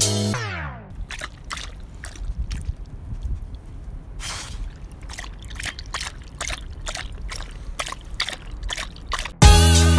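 A dog lapping water from a plastic basin: a run of quick wet laps and splashes, about two or three a second. Background music slurs downward in pitch and dies away at the start, and cuts back in just before the end.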